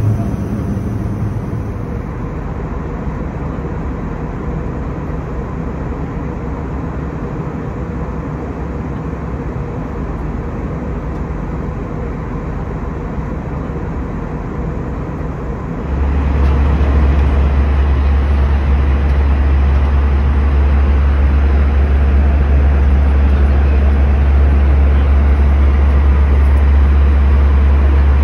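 Steady airliner cabin noise in flight, the hiss of airflow and the drone of the Airbus A319's jet engines. About halfway through it steps up louder, with a strong low rumble added.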